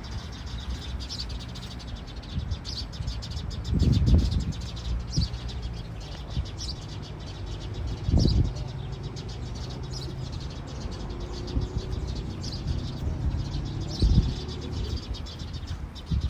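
A bird chirping in short, repeated calls about once every second or so, over a low rumble of wind on the microphone that gusts louder a few times.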